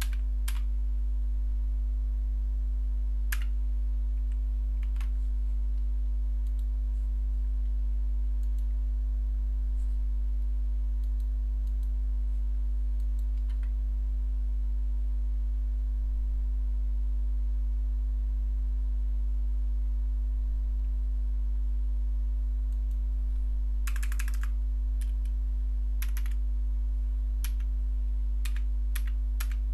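Computer keyboard keystrokes: a few single taps in the first few seconds, then a quick run of taps near the end, over a steady low electrical hum.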